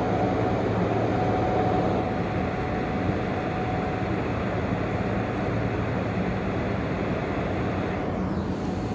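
Steady machine hum and hiss of TIG welding equipment running while the root pass of a 2-inch pipe joint is welded, with a faint steady whine above the hum.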